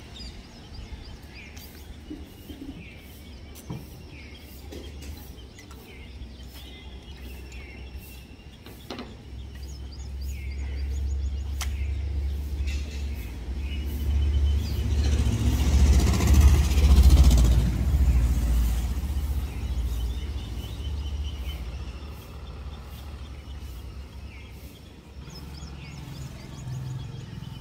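A vehicle passing by: a low rumble builds for several seconds, peaks just past the middle, then fades. Birds chirp faintly throughout.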